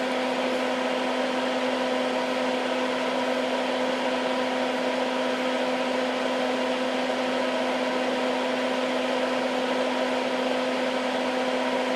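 Hakko soldering smoke absorber (fume extractor fan) running steadily: a constant motor hum with a whir of moving air, unchanging in pitch or level.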